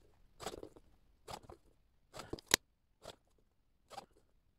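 Blade carriage of a Fiskars paper trimmer sliding along its rail in short scraping strokes, scoring small card pockets, with a sharp click about halfway through.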